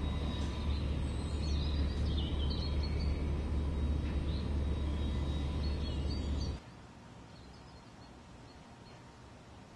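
Outdoor ambience: a steady low rumble with birds chirping high above it, cutting off suddenly about two-thirds of the way through and leaving only a faint hiss.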